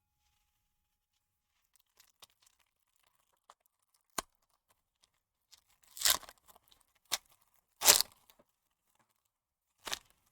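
Baseball card pack wrappers being torn open: a handful of short, sharp rips, the loudest two about six and eight seconds in.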